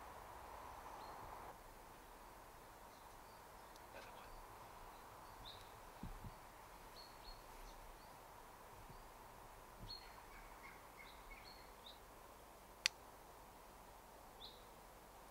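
Quiet woodland with faint, scattered chirps of small birds, and a single sharp click near the end.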